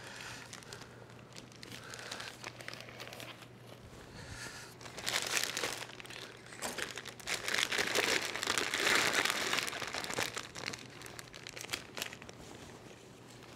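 Plastic poultry shrink bags crinkling and rustling as they are handled around whole chickens, coming on and off and at their busiest past the middle.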